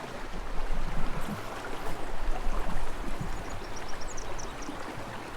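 Water of a small spring creek running: a steady, even rush.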